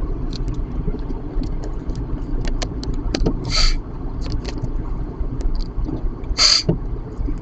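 Steady road and engine rumble inside a moving car, with scattered light ticks of raindrops on the car. Two short, loud hissing swishes come about three seconds apart, near the middle and again near the end.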